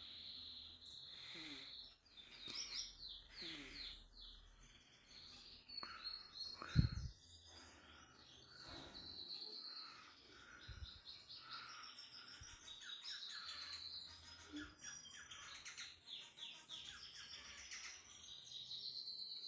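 A pet bird chirping and chattering in quick, high-pitched runs of short notes, with one dull thump about a third of the way through.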